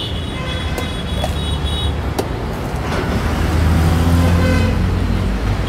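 Road traffic: a motor vehicle's engine rumbling close by, loudest a few seconds in. In the first half come a few sharp knocks of a machete cutting a tender coconut.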